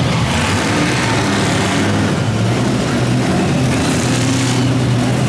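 Monster truck engine running hard under load, its pitch rising and falling a little as the truck drives over crushed cars.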